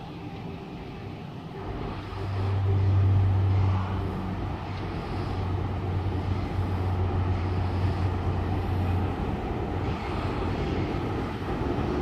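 ALCO diesel locomotive 4490 running into the platform at low speed. Its engine gives a deep steady drone that comes up about two seconds in, is loudest for the next couple of seconds, and drops away after about nine seconds under a general rumble of the moving train.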